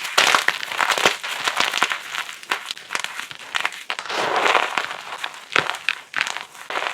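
Blocks of gym chalk being crushed, a dense run of dry crunching and crackling with sharp snaps, swelling into a longer gritty crumble about four seconds in.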